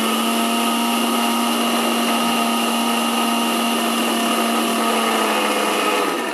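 Electric mixer grinder with a stainless-steel jar running at full speed, blending a liquid drink: a loud, steady motor whine with churning. Near the end it is switched off and the whine dies away.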